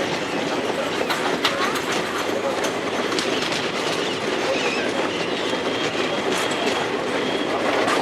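Train running on the rails, heard from aboard: a steady rumble and rattle with scattered clicks of the wheels over the track, and a faint high whine in the middle.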